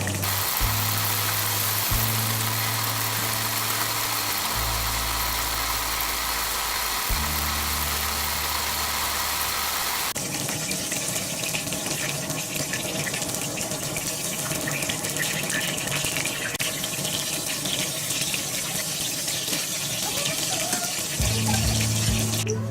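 Background music with a slow bass line over a steady hiss with fine crackling, like oil sizzling as breaded oysters deep-fry. The music drops out about ten seconds in, leaving the crackling hiss, and returns near the end.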